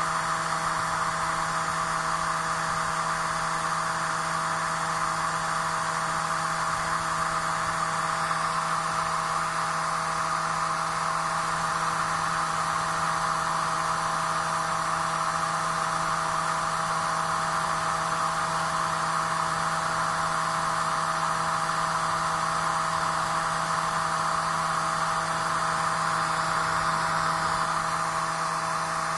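Computer optical drive spinning a CD at high speed while burning it: a steady whirring hum with an airy hiss that holds level throughout.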